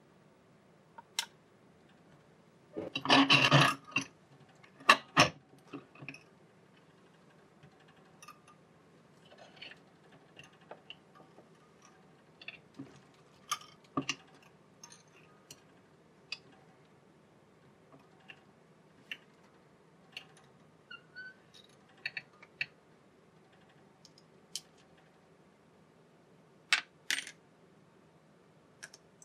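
Small 3D-printed plastic parts and a metal nut being handled at a bench vise: scattered light clicks and taps, a loud scrape lasting about a second a few seconds in, and sharp knocks soon after and again near the end.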